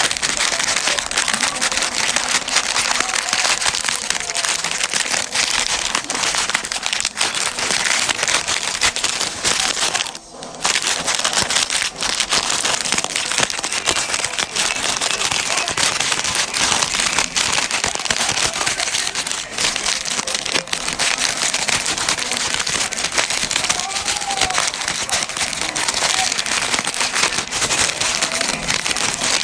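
Bag of Flamin' Hot Cheetos squeezed and crushed by hand: a dense crinkling crackle of the snack bag and the chips breaking inside it, with a brief pause about ten seconds in.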